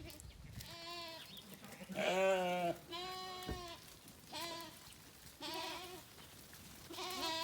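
Sheep bleating: about six quavering bleats from several animals of the flock as they are driven toward a pen, the loudest about two seconds in.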